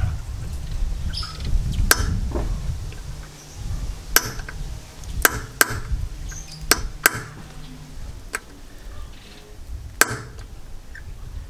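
Small hammer striking a steel punch held against a car's front stub axle nut, about seven sharp metallic taps spaced unevenly, staking the nut's collar so the nut cannot work loose.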